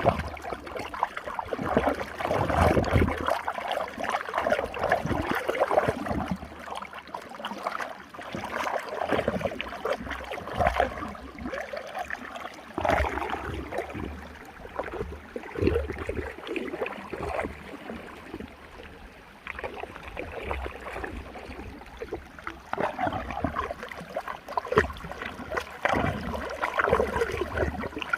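Running water swirling in a whirlpool, a continuous rush that swells and falls in uneven surges.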